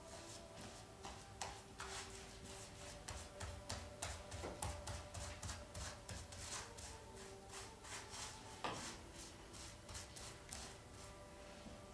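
Faint, irregular scratchy strokes of a paintbrush rubbing over a surface, several a second, over a low steady hum.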